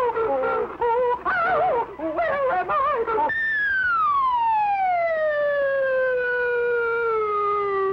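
Dubbed cartoon sound effects: a warbling, wavering whistle-like sound for about three seconds, then one long whistle that slides smoothly downward in pitch over about four and a half seconds, a falling-pitch gag effect.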